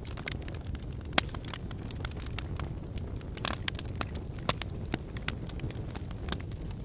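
Wood fire crackling in a fireplace: irregular sharp pops and snaps over a steady low rumble of the flames, with one louder pop about a second in.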